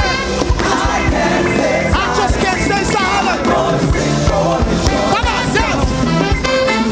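Up-tempo gospel praise music: a band with drums and bass playing steadily while voices sing.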